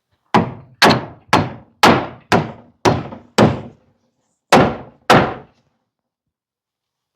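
Hammer driving a nail through a wooden batten into board siding: seven strikes about two a second, a short pause, then two more.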